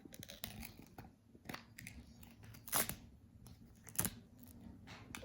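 A few sharp, crisp crunching clicks, roughly a second apart, over a quiet room background.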